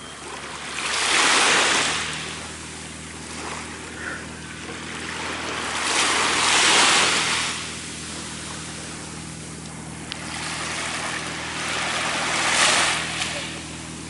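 Small waves washing up onto a sandy beach and drawing back: three swells of surf about five to six seconds apart, each a rush of hiss lasting a second or two, over a faint steady low hum.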